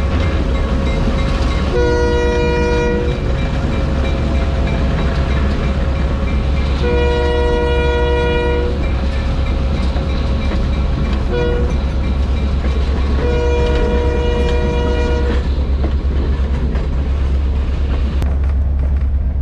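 Skunk Train's horn sounding the grade-crossing signal: two long blasts, a short one and a final long one, over the steady low rumble of the train rolling on the rails.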